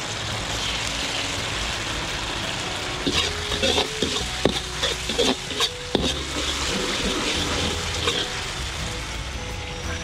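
Chopped garlic sizzling steadily in hot oil in a wok. From about three to six seconds in, a metal ladle stirs and knocks against the wok several times.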